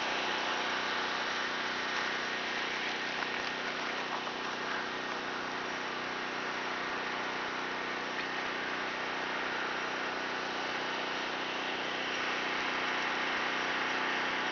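Portable gasoline generator running steadily at a constant speed, supplying power during an outage.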